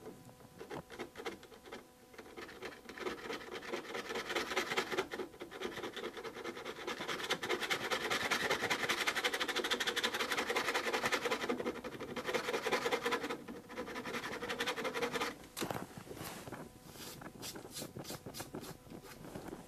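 Plastic scraper card drawn back and forth across a hardened wax fill in a finished wood surface, scraping the excess wax level with a rapid scratchy rasp. It is steadiest and loudest through the middle, then thins to separate strokes near the end.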